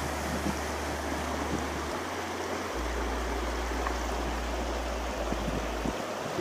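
Shallow river water rushing and babbling steadily over a bed of rounded cobbles and boulders.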